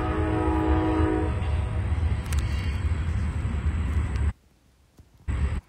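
Freight locomotive air horn sounding a held chord that stops about a second in, over the low steady rumble of a passing freight train. The sound drops out for about a second near the end.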